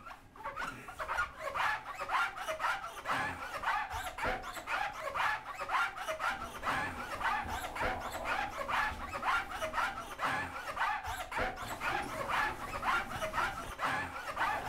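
Cloths scrubbing a bathroom sink and shower screen in quick rhythmic strokes, about two to three a second, with heavy panting breaths mixed in.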